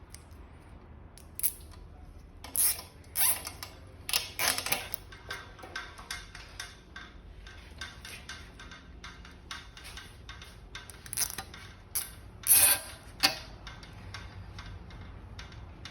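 Nylon zip ties being pulled tight around e-bike wiring, each pull a short ratcheting zip. They come in two groups, several between about one and five seconds in and more around eleven to thirteen seconds in.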